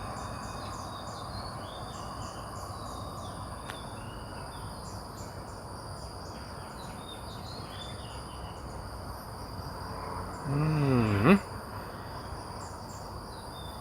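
Insects chirring steadily outdoors, with a constant high whine and many short, repeated high chirps. About ten and a half seconds in there is a brief low vocal sound from a person, like a short hum.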